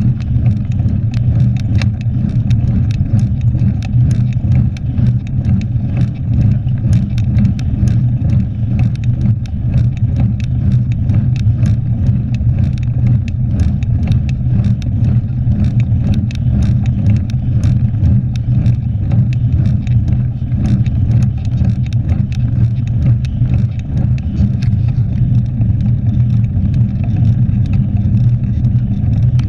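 Mountain bike rolling on asphalt, picked up by a GoPro mounted over the front wheel: a steady low rumble of wind and tyre noise with many small clicks and rattles from the bike.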